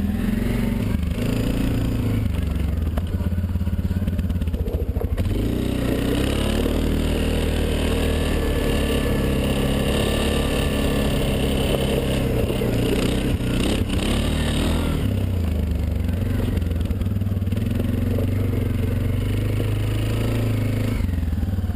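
ATV engine running continuously, its pitch shifting up and down a little with the throttle.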